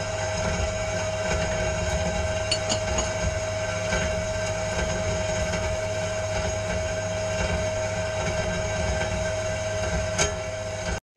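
A power saw cutting through thick steel plate: a steady whine over a grinding noise, with a few clicks, stopping abruptly near the end.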